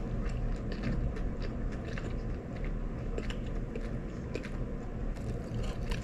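Close-up chewing and biting of crispy fried chicken, with small irregular crunches and clicks over a steady low hum.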